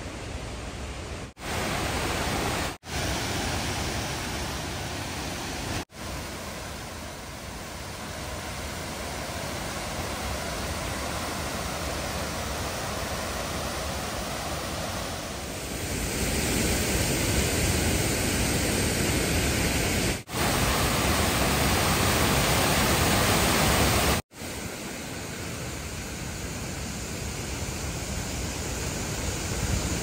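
Steady rush of falling water from a waterfall, with no pitch to it. The water sound is broken by several abrupt cuts, changing level at each, and is loudest in the later part.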